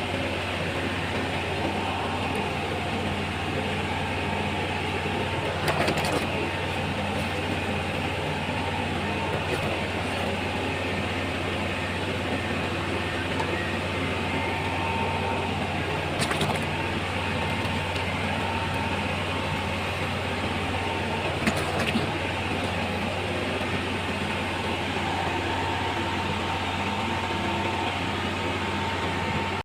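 A machine running steadily, a low even drone with a faint steady whine above it, and a few light knocks.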